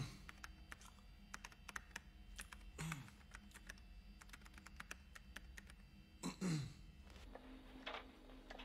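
Typing on a computer keyboard: a run of soft, quick key clicks, with two brief louder sounds of falling pitch about three and six seconds in.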